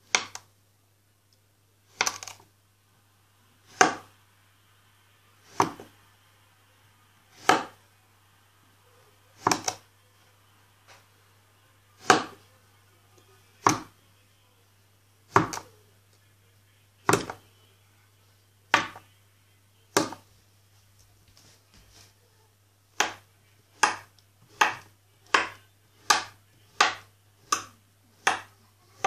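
Knife chopping down through kinetic sand onto a hard surface: sharp single chops about every two seconds, then a quicker run of chops about 0.7 s apart over the last six seconds.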